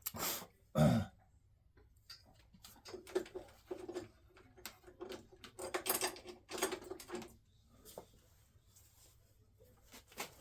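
Hands working with small parts and tools: irregular clicks, knocks and rustling, with a louder thump just under a second in.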